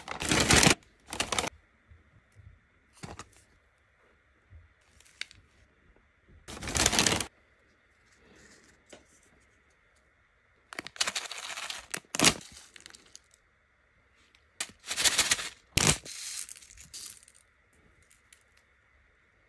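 Paper bag and packaging crinkling and tearing in short, separate bursts, with the longest one near the middle and a few seconds of quiet between bursts.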